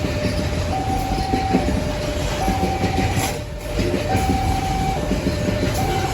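Long coal train passing with its wagons' wheels rumbling and clattering over the rails, while a two-tone warning alarm alternates a high and a low note, each held just under a second.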